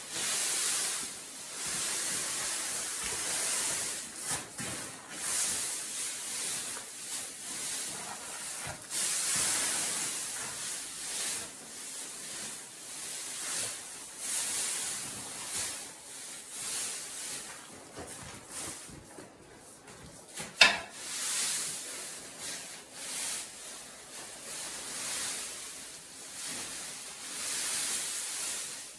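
Dry straw rustling and crunching in repeated swells as it is pulled loose from a round bale. One sharp knock stands out about two-thirds of the way through.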